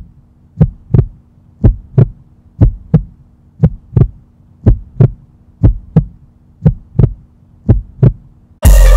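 Heartbeat sound effect: paired thumps, lub-dub, about once a second over a steady low hum. Loud music with a beat cuts in just before the end.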